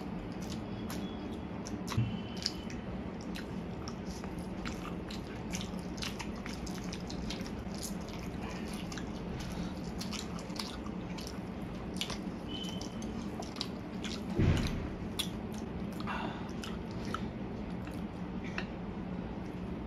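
Two people slurping and chewing spicy Korean fire noodles with chopsticks, close to the microphone: a steady run of small mouth clicks and chewing sounds. A louder thump comes about two-thirds of the way through.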